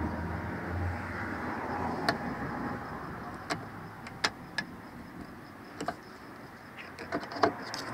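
Several sharp, irregular clicks and taps of a metal ruler being worked into the gap around a car's closed fuel filler door, trying to force the electric fuel door latch open without battery power, over a steady low background noise.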